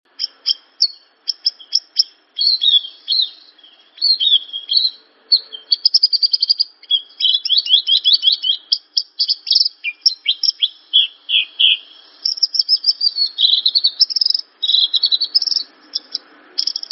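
Javan bush lark (branjangan) singing: a long, fast, varied run of high chirps, rattling trills and quick down-slurred notes, broken only by short pauses.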